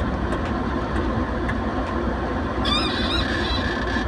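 Steady low rumble of a motorcycle ride along a wet street, with a short wavering honk in two parts about two and a half seconds in.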